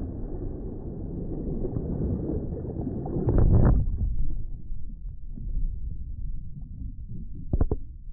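Pool water splashing and churning at the foot of a water slide, heard muffled, with a loud rush about three and a half seconds in; then a low underwater rumble with a brief double knock near the end.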